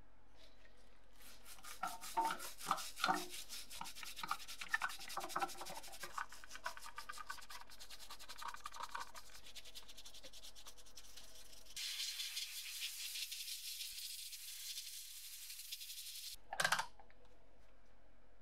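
A toothbrush scrubs a circuit board held in a tank of liquid, with fast scratchy bristle strokes and some sloshing. It gives way to a steady hiss for about four seconds, then one brief loud sound near the end.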